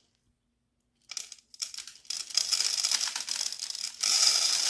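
Loose birdseed rattling and trickling in the feeder, a dense run of small dry ticks. It starts about a second in, after a moment of silence, and is loudest near the end.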